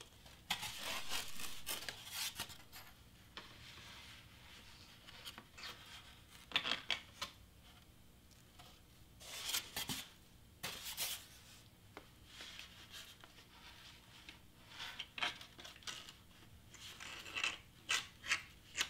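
Foam board sheet sliding and rubbing over the paper layers and cutting mat as it is lifted and repositioned, in irregular short scraping bursts with quieter gaps.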